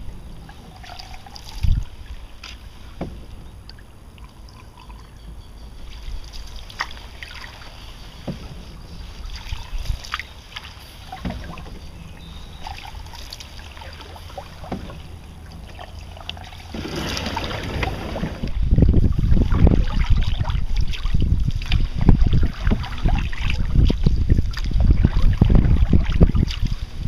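Wooden canoe paddle dipping and pulling through calm water, with drips and occasional sharp knocks. For the last several seconds wind buffets the microphone in a loud low rumble.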